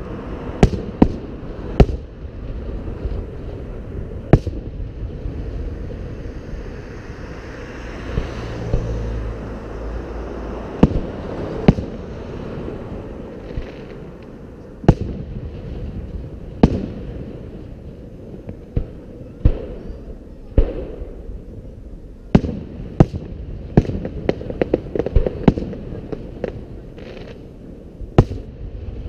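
Aerial firework shells bursting in a city fireworks display: sharp booms at irregular intervals over a steady low rumble, with a quick run of many bursts close together in the last third.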